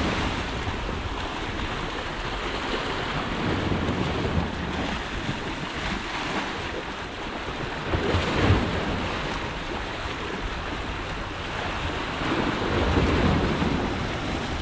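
Sea waves washing in over shoreline rocks, a steady rush that swells into louder surges about eight seconds in and again near the end, with wind rumbling on the microphone.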